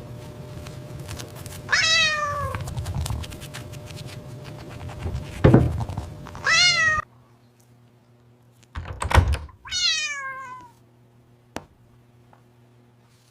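A cat meowing three times, each meow falling in pitch. Two dull thumps come between the meows and are the loudest sounds.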